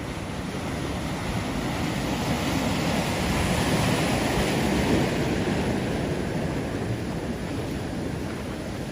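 Ocean surf breaking on the shore: a steady rush of water that builds to a peak about halfway through and then eases off.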